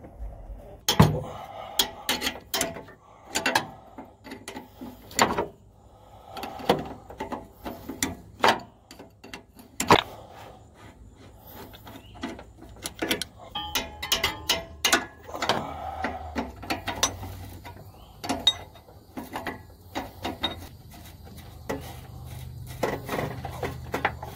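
Hand tools working on engine bolts and fittings: irregular metal clinks and knocks, with short runs of quick clicking.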